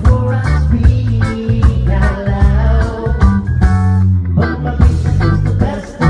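A live band playing loud amplified music, with guitar and a strong bass line, and a male vocalist singing into a microphone over it.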